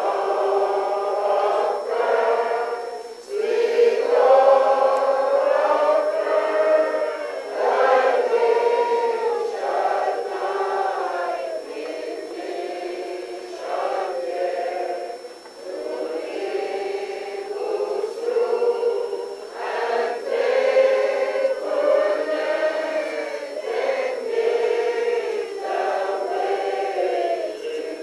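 A congregation singing together, in long held lines with short breaks between phrases.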